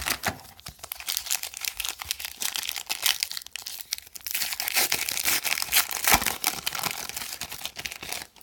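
A trading card pack wrapper being torn open and crinkled, a dense run of crackling and rustling that stops abruptly near the end.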